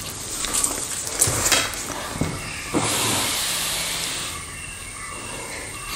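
Cloth and a cloth measuring tape being handled on a table: rustling and sliding, with a few soft taps in the first three seconds.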